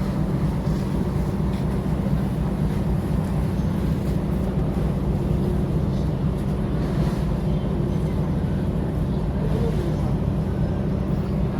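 Steady low drone of a car ferry's engines, unchanging throughout.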